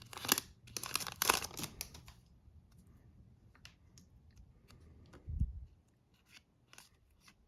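Foil wrapper of a hockey card pack crinkling and tearing in the first two seconds, then fainter ticks and rustles of cards being handled, with a soft low thump about five seconds in.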